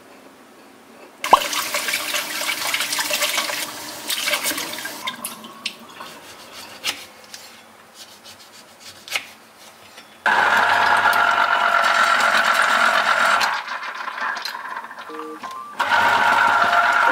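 Electric citrus juicer's motor running while halved oranges are pressed under its lever: a steady hum with a whine, in a spell of about three seconds and then again for over a second near the end. Earlier there is a sharp click and a few seconds of rushing noise, then scattered light taps of a knife cutting the fruit on a board.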